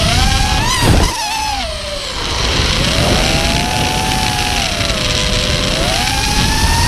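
Brushless motors of a 5-inch FPV racing quadcopter (Scorpion 2205 2350 kV motors on HQ 5x4x3 props) whining in flight, as heard by the onboard camera. The pitch rises and falls with the throttle: a short loud burst of noise about a second in, a dip around two seconds, then a steady climb in pitch near the end.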